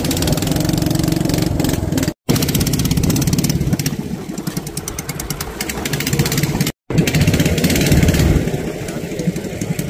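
Fishing boat's engine running steadily with a fast, even chugging, cut off completely for a split second twice.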